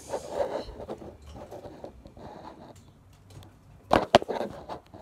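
Homemade putty-like glitter slime squished and worked by hand for ASMR, giving irregular sticky, scraping crackles, with two sharp pops about four seconds in.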